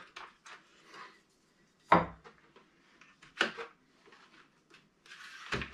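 Scattered clicks and knocks of hands working in the battery bay of a Losi Super Baja Rey 2.0 RC truck, with three louder knocks about two, three and a half, and five and a half seconds in.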